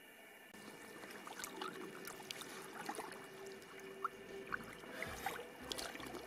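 Soft water sloshing and dripping around a floating carp retainer sling being handled in shallow water, with scattered small splashes and drips.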